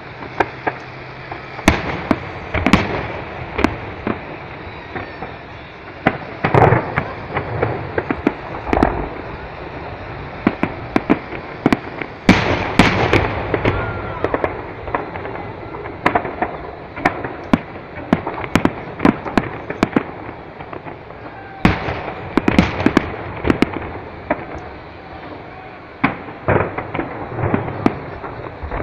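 Aerial fireworks shells bursting in irregular succession, sharp bangs followed by crackling. The bangs come in dense flurries about 12 seconds in and again about 22 seconds in.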